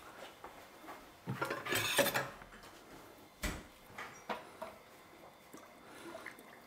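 Kitchen clatter of a long metal spoon in a stainless steel mash tun, stirring in water-treatment salts to dissolve them: a rattling clatter about a second and a half in, a single sharp knock a couple of seconds later, then a few light clinks.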